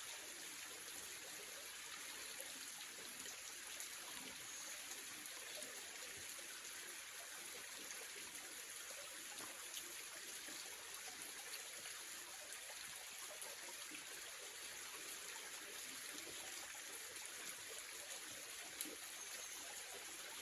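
Faint, steady hiss of running water, with a few small clicks scattered through it.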